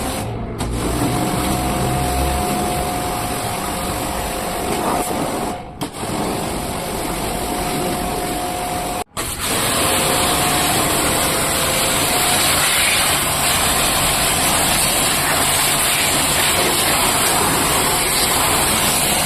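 Electric jet pump spraying water on a window air conditioner during servicing: a steady hiss of water spray over a motor whine, broken by brief cuts in the sound.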